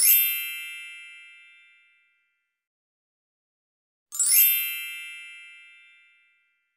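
Two magical chime sound effects about four seconds apart, each a quick upward shimmer of bell-like tones that then ring on and fade over about two seconds.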